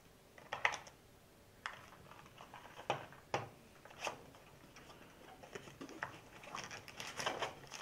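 Handling noise from a smartphone box: light, irregular clicks and taps as cardboard trays and small accessories are lifted out of their compartments and set down on the table.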